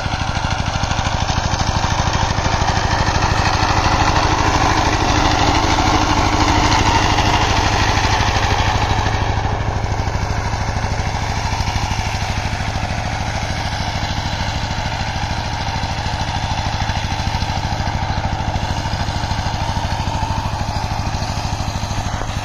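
Two-wheel walking-tractor power tiller's single-cylinder diesel engine running steadily under load with a fast, even beat while its rotary tiller works the soil. It swells a little louder for a few seconds early on, then holds steady.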